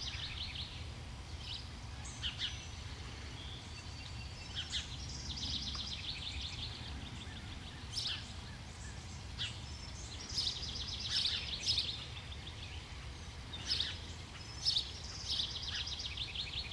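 Birds singing, with short chirps and fast trilled phrases repeating every few seconds over a steady low background rumble.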